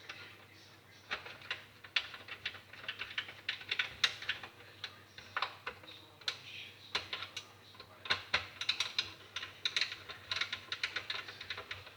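Rapid, irregular small clicks and taps of hard parts being handled, starting about a second in.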